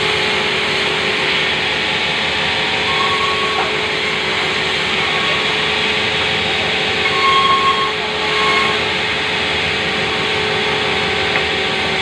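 Sawmill saw bench running steadily and ripping a timber plank lengthwise into boards: a constant mechanical drone with short high whines that come and go as the blade cuts, loudest about seven seconds in.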